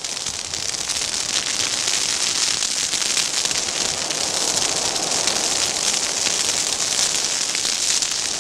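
Ground fire crackling steadily as flames burn through dry longleaf pine needles and wiregrass, a dense, even patter of fine crackles.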